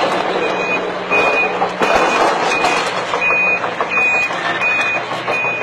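A vehicle reversing alarm beeping steadily, about three beeps every two seconds, over loud mechanical noise, with one sharp thump near the middle.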